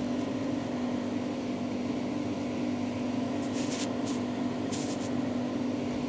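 Steady motor hum at an even pitch, with two short, soft scraping hisses a little past the middle.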